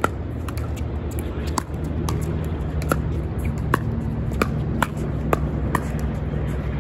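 Pickleball paddles hitting a plastic ball in a rally: a quick run of sharp pops, about two a second, each with a short ring. Wind rumbles on the microphone underneath.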